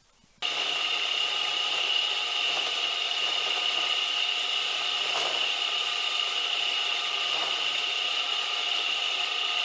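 Homemade mini metal lathe running under its 24 V motor, with a steady high whine, as the cutting tool turns down aluminium stock with some chatter. The sound starts suddenly about half a second in.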